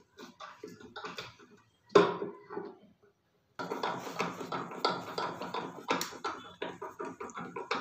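Screws being turned by hand with a long screwdriver through a metal drawer slide into the wooden drawer: irregular small clicks and scraping of the metal tip in the screw heads, with a sharp knock about two seconds in. The sound breaks off briefly around three seconds in.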